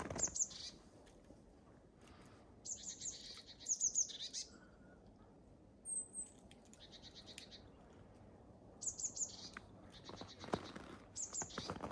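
A small songbird sings short, high, rapid trilled phrases about five times, with quiet between them. Near the end comes the faint crunch of a couple of footsteps in snow.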